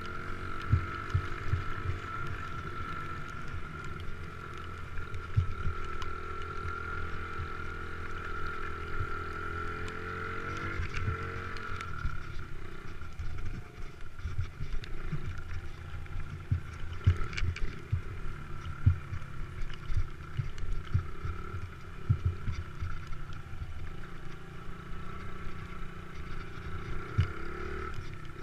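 Motocross bike engine running under throttle, its pitch rising and falling with the revs. The pitch climbs for a few seconds before dropping away about eleven seconds in. A steady high whine and frequent low thumps run alongside it.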